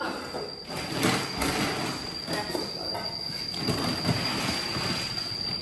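Rustling of a plastic bag and light knocks of a metal bowl being handled on the floor, over a steady high-pitched whine.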